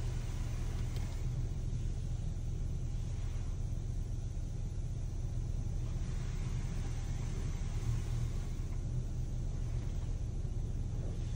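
Automatic car wash heard from inside the car's cabin: a steady low rumble, with the hiss of water spraying over the windshield swelling and fading every few seconds.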